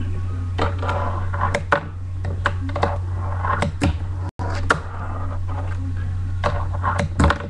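Irregular clicks and knocks of things being handled close to the microphone, over a steady low electrical hum.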